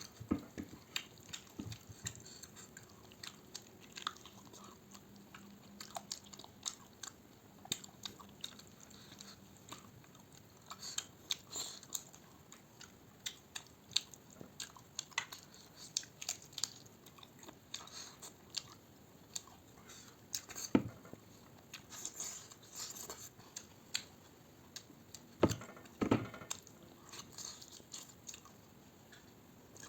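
Close-up chewing and biting of a person eating, with wet mouth noises and small crunches, and a few louder knocks near the end.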